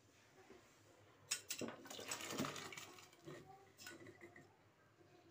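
Faint clinks and scrapes of metal kitchenware against a cooking pot, with a few sharp clicks about a second and a half in and again near four seconds.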